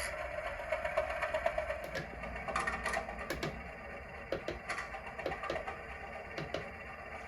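Recorded class 205 'Thumper' diesel multiple unit sound effects from an ESU LokSound V5 decoder, played through the model train's small on-board speaker. A steady hum fades over the first couple of seconds, then a string of irregular clicks and clunks follows.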